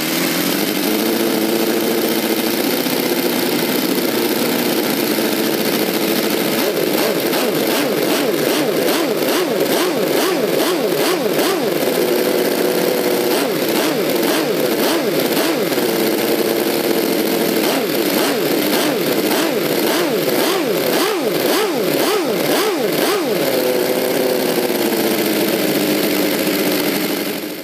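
Homemade four-stroke V8 model engine with rotary valves, running through its new 3D-printed aluminium exhaust manifolds. Its pitch rises and falls repeatedly as the throttle lever is worked by hand, with steadier stretches between revs. The sound cuts off suddenly at the end.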